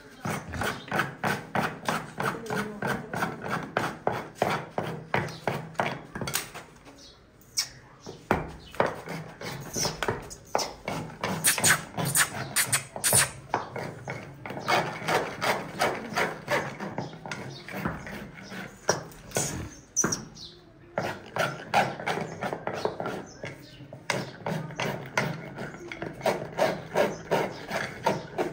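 Farrier's hammer tapping on a horseshoe and its nails at a horse's hoof: quick rhythmic strikes, about three a second, in long runs with brief pauses.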